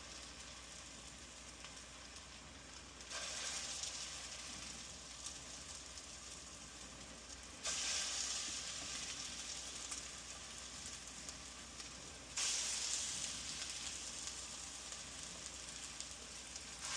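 Ground chicken and potato patties sizzling in hot olive oil in a stainless steel pan. The sizzle jumps up suddenly three times, about three, eight and twelve seconds in, as more patties are laid in, easing off after each.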